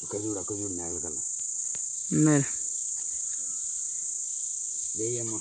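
Steady high-pitched chirring of insects, with a few short vocal calls over it, the loudest about two seconds in.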